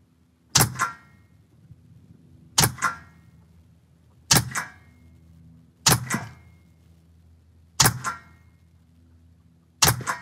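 Six shots from an AEA HP SS semiautomatic .25-calibre PCP air pistol, fired one after another about every one and a half to two seconds with no cocking between them. Each is a sharp crack followed closely by a second, shorter crack.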